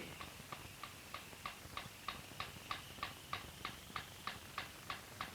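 Clock ticking steadily, about three ticks a second, counting off the time.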